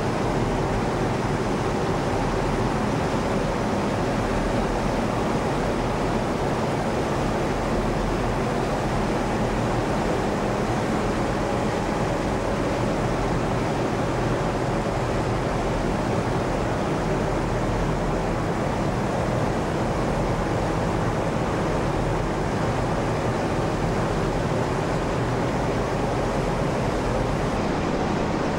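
Steady, loud machinery noise of a ship's engine room: a dense, even hiss over several low, steady hums, with no change in rhythm. The hiss dims slightly near the end.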